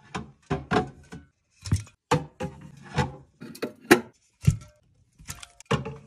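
Aluminium soda cans clinking and knocking against each other and the mini fridge shelf as they are set in place. The taps come in an irregular, fairly quick series, some with a short metallic ring.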